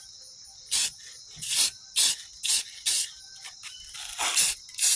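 Aerosol can of clear lacquer sprayed in about seven short hissing bursts, light coats going onto a plastic turn-signal lens. Crickets chirp steadily underneath.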